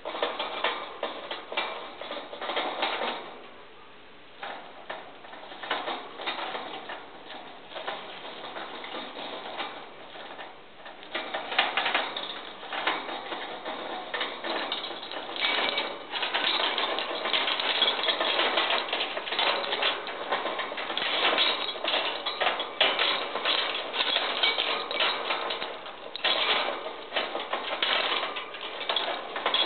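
Degus spinning and gnawing pieces of apple-tree branch threaded on a metal wire: a dense, irregular run of fast clicks and clatter, growing louder about eleven seconds in.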